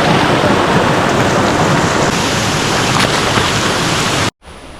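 Waterfall close by, a loud steady rush of falling water. It cuts off suddenly near the end, leaving a much fainter background rush.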